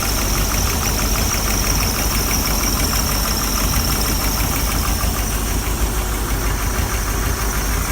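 Inboard gasoline boat engine idling steadily with a fast, even ticking over the drone: a loud valve tap from the right bank of the starboard engine, which fixing the distributor cap has not cured.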